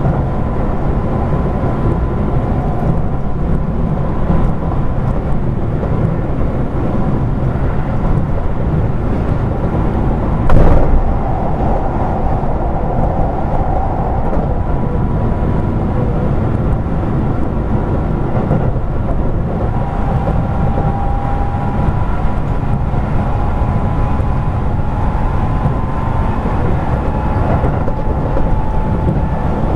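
Keio 8000 series electric train running at speed, heard from inside the passenger car: a steady rumble of wheels on rail with faint whining tones. About ten seconds in there is a brief loud burst, the loudest moment.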